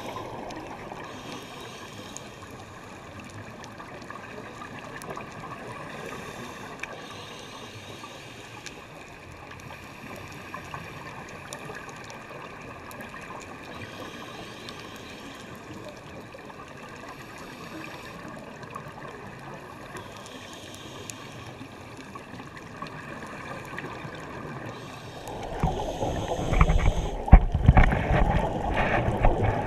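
Muffled underwater sound through a GoPro housing: a steady low hiss of water, then from about 25 seconds in a loud, irregular gurgling rush of scuba regulator exhaust bubbles close to the camera.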